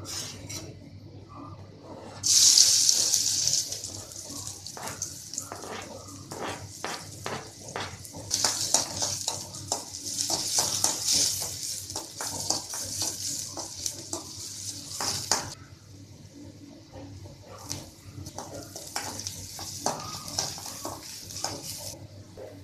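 Chopped onions sizzling in hot oil in a wok: the sizzle starts suddenly and loudly about two seconds in as they go into the oil, then comes and goes in waves. A metal ladle scrapes and knocks against the pan as the onions are stirred.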